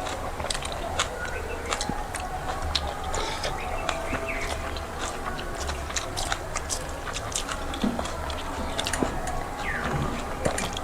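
Close-up chewing and mouth sounds of people eating rice and curry: a run of small, irregular wet clicks and smacks.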